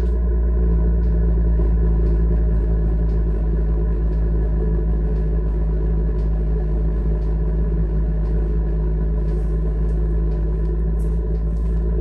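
Chinese diesel combination heater running just after its first start-up: a steady humming rumble from its blower and burner, with faint ticks scattered through it that come more often near the end.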